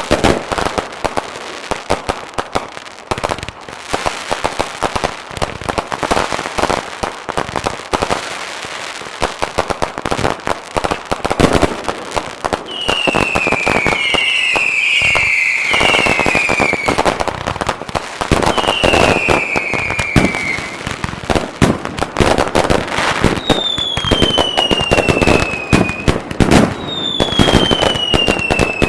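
Fireworks barrage: a dense, rapid run of bangs and cracks from aerial shells and cakes. Whistles falling in pitch cut through it, several overlapping about halfway through and two longer ones near the end.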